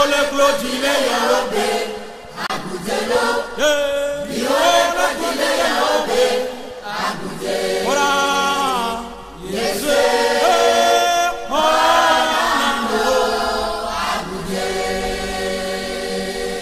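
A choir singing a gospel chorus in Ewe, several voices holding and sliding between long notes.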